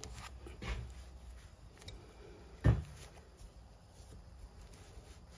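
Exhaust header wrap being wound tight around a minibike exhaust pipe by hand: soft rubbing and rustling of the woven wrap, with a small knock near the start and a sharp thump about two and a half seconds in.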